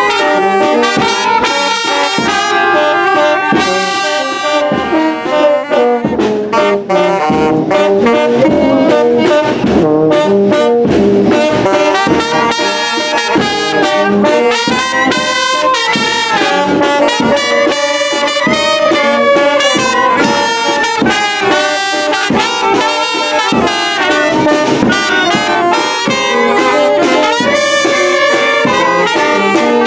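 A Mexican wind band (banda de viento) playing a tune live, loud and without a break: trumpets, alto and soprano saxophones, a clarinet and a tuba together.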